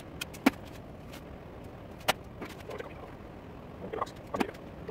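Sharp metallic clicks and clinks with brief ringing, three main ones a second or two apart, from tooling being handled and set at a metal lathe's chuck and tool post.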